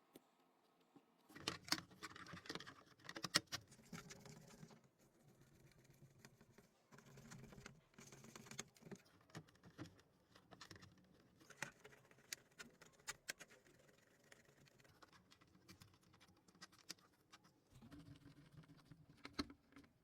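Faint, irregular clicks and rustling as small plastic keyboard parts are handled.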